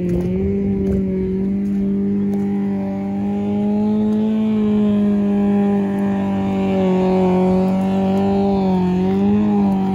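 Off-road race car's engine held at high, nearly steady revs under load, the pitch wavering slightly and dipping briefly near the end.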